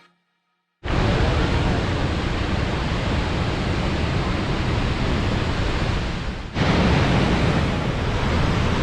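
Gullfoss waterfall's heavy rushing water, a loud, steady, even noise that starts about a second in. It dips briefly about six and a half seconds in and then goes on at the same level.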